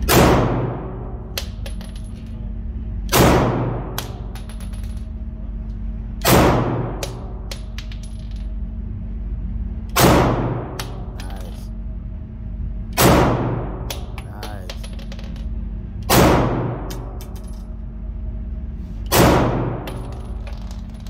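Pistol fired seven times at a slow, deliberate pace, about three seconds between shots, each shot ringing out in the reverberant indoor range. After each shot the ejected brass casing tinkles on the floor.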